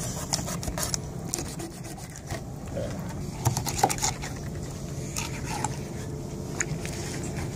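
Filleting knife scraping and clicking along the spine and rib bones of a yellowtail as a fillet is cut away, with a steady low rumble underneath.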